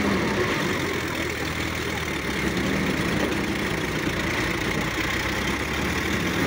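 Diesel engines of a Swaraj 855 FE and a Sonalika DI-50 RX tractor running steadily under heavy load as they pull and push a sand-laden trailer through mud.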